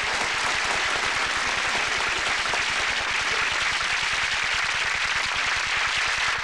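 Studio audience applauding steadily, dying away right at the end.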